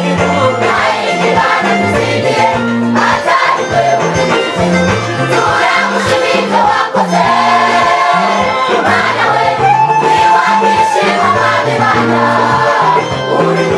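Live amplified gospel music: many voices singing together over electric guitars, a stepping bass line and a drum kit.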